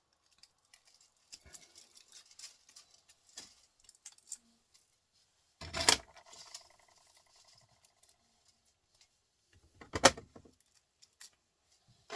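Small metal scrap parts from a stripped-down printer motor clinking and rattling as they are handled. There are two loud metallic clanks, about six and ten seconds in, and the first rings briefly.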